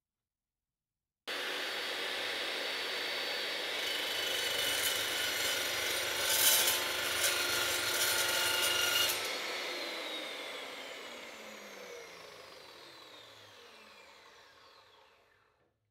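Makita LC1230 cold cut metal chop saw, its 12-inch blade cutting through a 6 mm thick mild steel flat bar with a harsh scraping cut that is loudest in the middle. The sound begins abruptly about a second in. Then the motor is switched off and the blade spins down with a falling whine that fades over several seconds.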